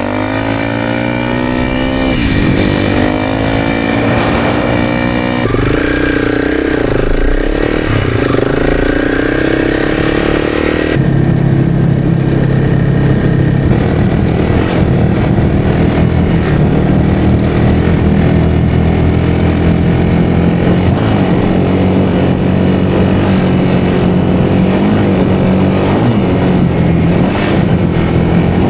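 Honda CRF300's single-cylinder engine running under load through deep sand, the revs rising and falling for the first ten seconds or so, then pulling at a steadier pitch.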